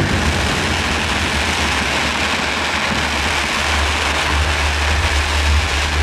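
Fireworks display: a steady, dense wash of crackling over a constant low rumble.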